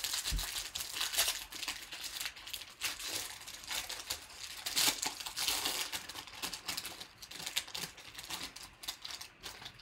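Foil wrapper of a trading card pack being torn open and crinkled by hand, a dense run of crackles and rips that stops near the end.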